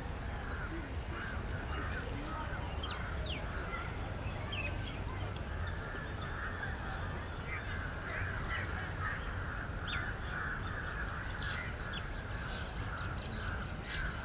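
Birds calling and chirping, with many short sharp calls, some falling in pitch, over a steady high chatter and a constant low background rumble.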